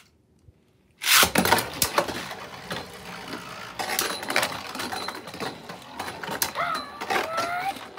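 Two Beyblade Burst spinning tops launched into a plastic stadium about a second in, then spinning and clashing, with continuous rapid clicking and clattering of the tops striking each other and the stadium walls.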